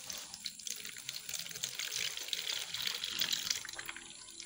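Snail slime being poured from a plastic bowl through a fine plastic mesh strainer into a bucket: a steady liquid pour and trickle that thins out near the end.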